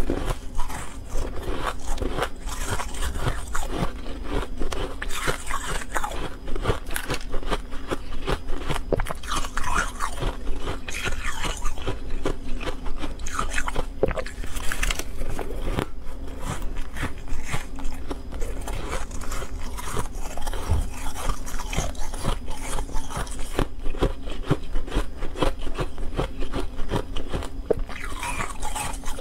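Freezer frost being bitten and chewed: close, continuous crunching made of many small crackling clicks, without pause.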